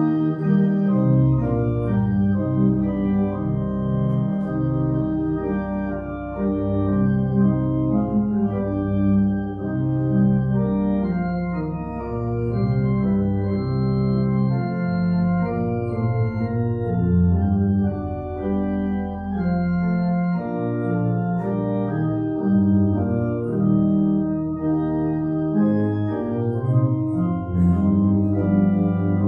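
Church pipe organ playing a hymn: full sustained chords that change every second or so over a moving bass line.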